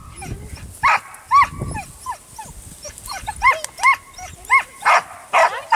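Young border collie yipping and barking repeatedly while herding sheep: short, high, arching yelps, about two a second, starting about a second in.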